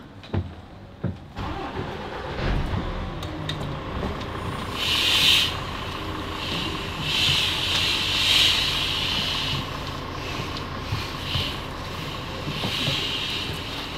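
A few knocks, then a coach's engine running at idle, with a high hiss that comes and goes over it.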